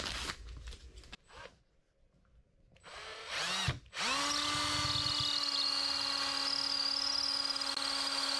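Cordless drill turning a long 3/16-inch pilot bit, boring down through the floor framing toward the crawl space. A brief spin-up about three seconds in, a short pause, then a steady whine of the drill motor from about four seconds on.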